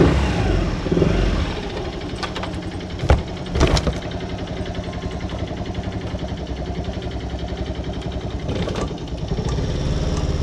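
Honda Little Cub's single-cylinder four-stroke engine, bored up to 88cc, running and settling into a steady, rapid idle putter, with a few sharp knocks about two to four seconds in.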